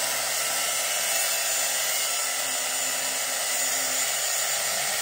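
Angle grinder running steadily as it cuts through metal pipe, throwing sparks.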